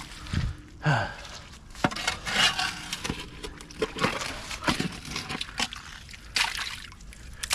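Digging in a flooded, muddy hole: irregular sloshing and scraping of wet mud and water, broken by sharp knocks.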